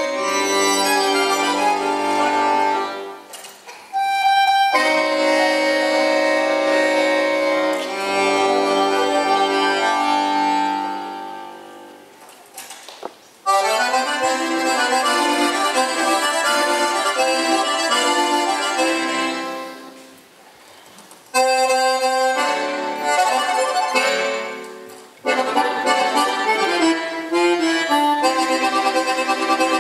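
Solo accordion playing a tune in phrases of held chords and melody, with low bass notes at the start. The sound dies away four times and comes straight back in at full strength with each new phrase.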